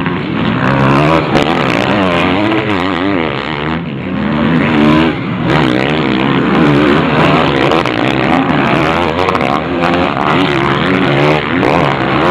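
MX1 motocross bikes revving hard as they ride past and up a dirt climb, several engines overlapping, their pitch rising and falling again and again.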